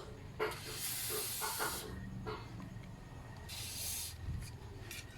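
Aerosol chain lube hissing in two spray bursts onto a chain: a longer burst about a second in and a shorter one past the middle.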